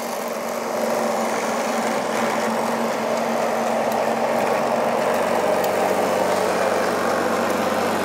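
Shark AV2501S robot vacuum running on carpet: a steady whir with a low hum underneath.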